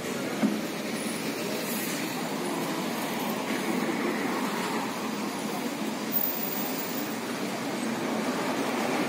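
Steady road traffic noise from passing cars.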